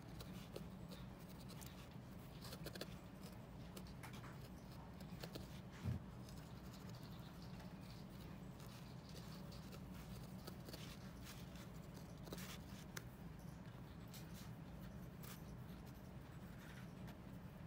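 Felting needle stabbing through wool into a foam pad: faint rapid ticks and scratches, with one louder knock about six seconds in, over a low steady hum.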